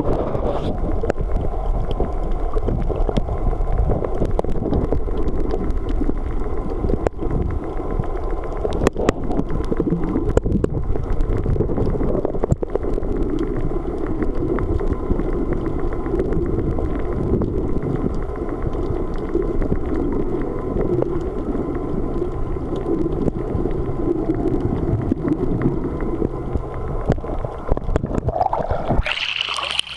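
Underwater sound through a submerged camera: a dense, muffled low rumble and gurgle of moving water, with a few sharp clicks. Near the end the camera breaks the surface and the sound turns abruptly thinner and hissier.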